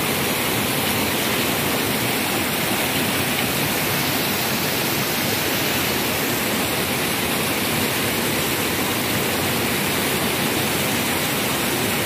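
Stream water rushing over small cascades between boulders: a steady, even rush.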